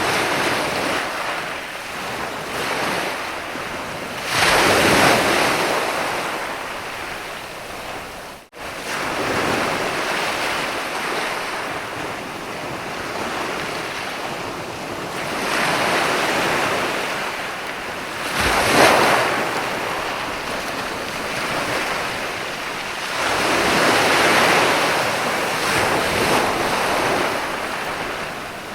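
Ocean waves breaking and washing up a sandy beach: a continuous surf hiss with three louder breaks, the sharpest about two-thirds of the way in. The sound drops out for an instant about a third of the way in.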